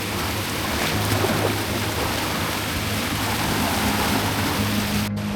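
Rushing river water, a steady loud rush, with low steady tones underneath; a brief break near the end.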